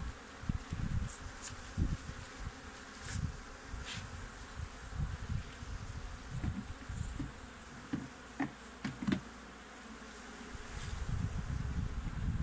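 Honeybees buzzing around a hive opened for honey harvest, with a few short wooden clicks from the hive tool and frames about two thirds of the way in and irregular low thumps of handling.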